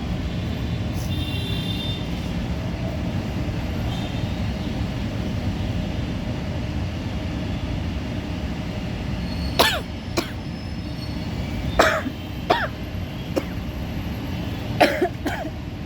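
A woman sneezing, several short sharp bursts with a falling pitch in the second half, over a steady low rumble of background noise.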